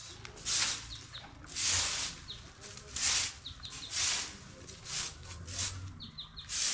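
Straw broom sweeping fallen leaves and twigs across brick paving: a rustling swish about once a second. Faint short chirps of small birds between the strokes.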